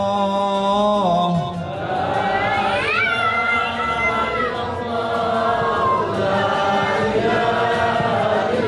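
A group of voices chanting an Islamic recitation in Arabic together, melodic, with long held notes that slide up and down.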